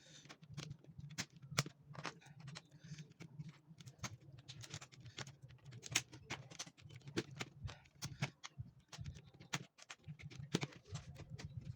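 Computer keyboard keys clicking and rattling irregularly, several clicks a second, over a low steady hum.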